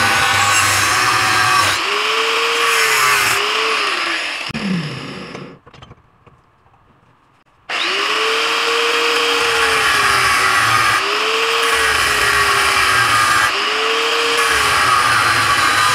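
Angle grinder with a thin cut-off disc cutting into square steel tubing, the motor's pitch dipping each time the disc bites into the metal. About four and a half seconds in it is switched off and winds down with a falling pitch; after a couple of seconds of quiet it starts again suddenly and goes back to cutting.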